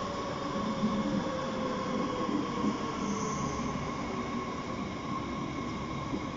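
DB Class 430 S-Bahn electric train pulling in along the platform and slowing, with a rolling rumble, a steady whine and a second whine that falls slowly in pitch as it loses speed.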